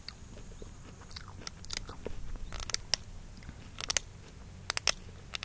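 A hazelnut being bitten and chewed, with sharp crunching crackles that come in clusters.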